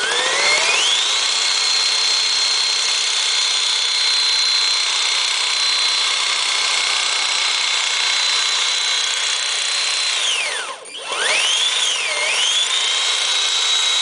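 Motor from an 18-volt Black & Decker cordless drill driving a scooter wheel by friction, running at full speed with a steady high whine. About ten seconds in it winds down almost to a stop, then spins back up, sags briefly in pitch and returns to full speed.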